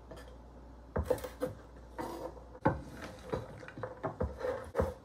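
Kitchen knife cutting string beans on a wooden cutting board: irregular sharp taps and knocks, several in a row. Near the end the cut beans are pushed across the board onto a plate.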